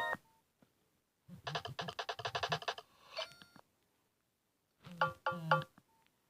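Nokia 5200 mobile phone playing short built-in ringtone melodies one after another, with silent gaps between: a quick run of notes lasting about a second and a half, a few faint tones, then a brief three-note phrase near the end.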